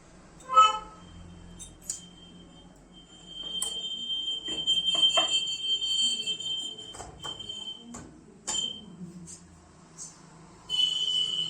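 Digital multimeter's continuity beeper sounding in a steady high beep for about four seconds, then again briefly near the end, with small clicks of the test probes on the board's transistor leads; the beep marks a low-resistance path, as when checking output transistors for a short.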